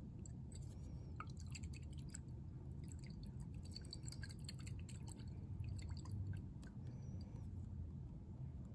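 Hydrogen peroxide and sodium iodide catalyst solution sloshing in a stoppered flask swirled by hand while it decomposes, giving scattered small liquid clicks and drips. These are busiest in the first six seconds, over a low steady hum.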